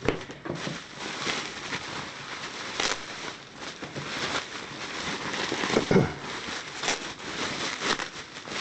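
Plastic cling wrap crinkling and rustling as it is handled and pulled off, with a thump about six seconds in.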